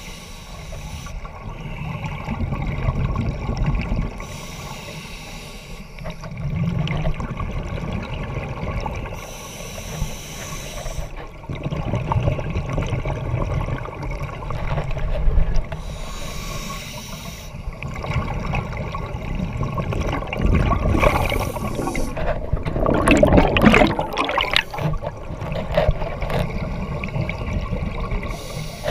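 Scuba diver breathing through a regulator underwater: a hiss on each inhale, coming about every five to six seconds, and gurgling bursts of exhaled bubbles, the loudest about two-thirds of the way through. A steady low rumble of water runs underneath.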